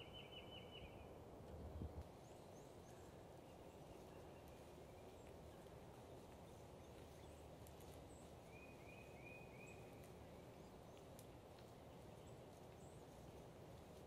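Faint woodland ambience with distant bird calls: a short rapid trill at the start, scattered high chirps, and a run of four quick notes about two-thirds of the way through. A single low thump about two seconds in.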